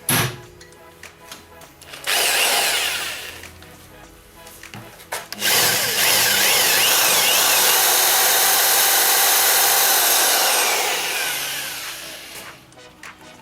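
A power tool cutting or drilling metal in two runs: a short burst about two seconds in, then a longer steady run of about six seconds that winds down near the end.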